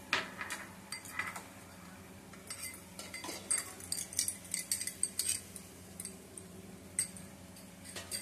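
Spiced masala frying in oil in a kadai on low heat, spluttering with scattered sharp pops that come thickest in the middle of the stretch.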